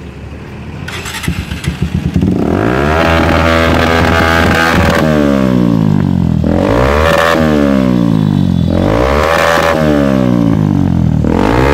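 Bajaj Pulsar 150's single-cylinder engine through an aftermarket TWPO exhaust silencer, catching about two seconds in and then blipped repeatedly, the exhaust note rising and falling about five times.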